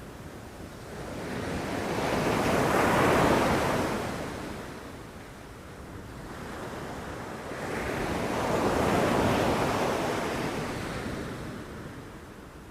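Sea waves breaking on a shore, two waves swelling and washing out about six seconds apart.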